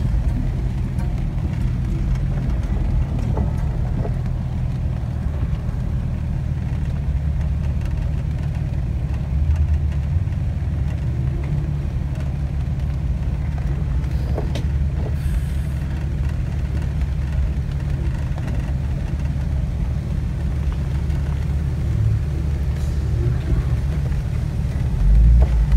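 Jeep engine and drivetrain running steadily at low crawling speed, heard from inside the cab: a continuous low rumble with a few faint knocks and a brief louder swell near the end.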